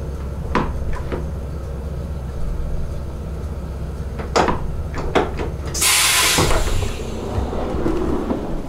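Interior sound of an SJ InterCity train: a steady low rumble with several sharp clicks and knocks, and a loud burst of hiss lasting under a second about six seconds in.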